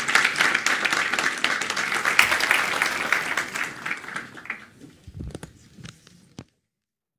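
Audience applauding, the clapping thinning out and fading away about four and a half seconds in. A few low thumps follow, then the sound cuts off abruptly.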